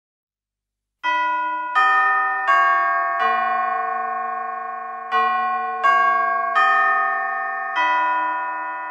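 A slow tune of eight struck bell chimes, each note ringing on under the next, starting about a second in with a short pause midway: a chime introduction to a Christmas song.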